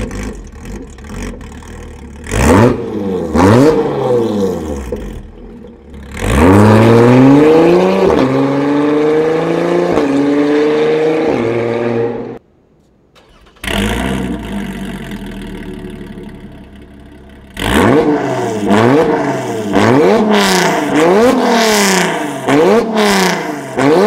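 Lotus sports car engine through an RES titanium valved cat-back exhaust, revved hard. Two quick revs are followed by a long climbing run of revs that rise and fall. After a brief break the engine runs lower and steadier, then gives a string of sharp throttle blips about once a second.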